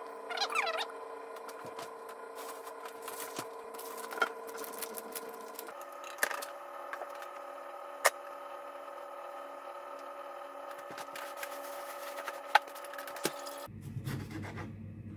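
Kitchen handling sounds: hands scattering spinach, green pepper and grated cheese into a pastry-lined tart tin, with a few sharp taps, then a knife cutting a tomato on a wooden chopping board near the end. A steady hum of sustained tones runs underneath and changes pitch about halfway.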